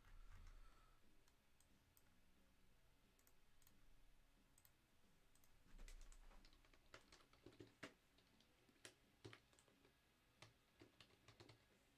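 Faint, scattered clicks and taps of a computer mouse and keyboard over near-silent room tone, more frequent in the second half.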